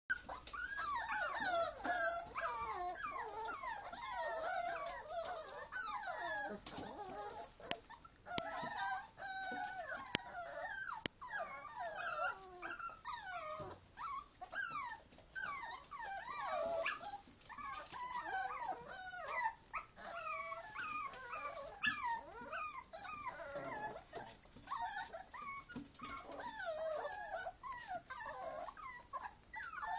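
A group of small white puppies whining and whimpering nonstop, many short high-pitched cries overlapping one another.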